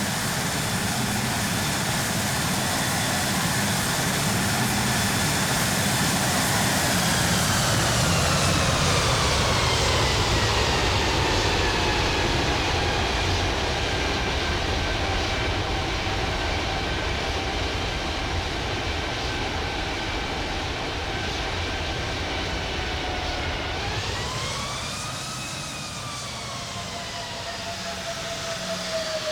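Airbus A330-300's twin jet engines at takeoff power: a steady drone with a whine that drops in pitch as the airliner goes past. Near the end the whine rises and falls again.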